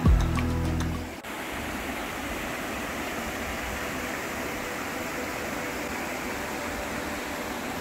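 Steady rush of a creek's flowing water, an even hiss with no rhythm. Background music cuts off about a second in.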